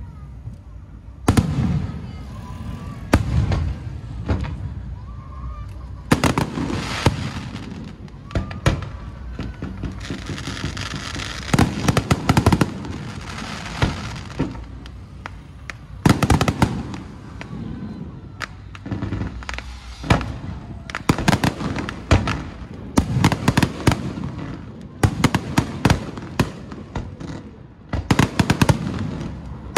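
Firecrackers and fireworks going off in dense volleys of sharp bangs and crackling, the volleys starting and stopping every few seconds throughout.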